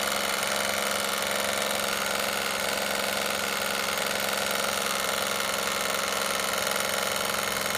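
A cheap 12 V electric oil-extractor pump running steadily, pushing oil from the pan into an LS engine block to prime its oiling system before first start, with oil already reaching the pushrods and rocker arms. It gives a steady mechanical hum with several fixed tones.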